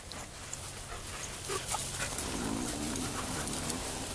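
A dog panting, with scattered faint clicks and a brief faint pitched sound partway through.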